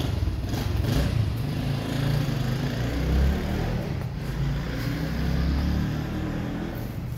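Low engine rumble of a motor vehicle running nearby, swelling and fading a few times.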